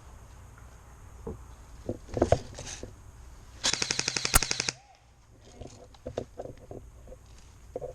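Airsoft gun firing: a few separate shots, then a rapid full-auto burst of about a dozen shots lasting about a second, partway through.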